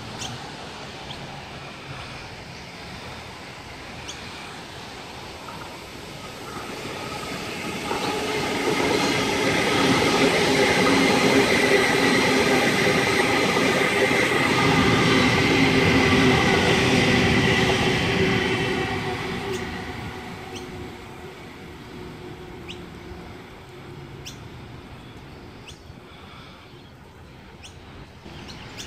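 A double-deck electric suburban train passes the platform. Its rumble and a steady whine build from about six seconds in, stay loud for several seconds, then fade away.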